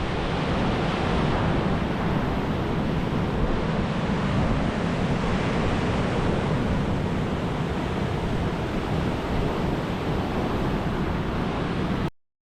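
Waves washing in on a lakeshore, with wind buffeting the microphone; the sound cuts off abruptly near the end.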